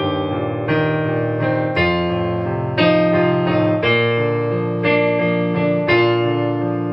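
Digital piano playing slowly, a new chord struck about once a second and held.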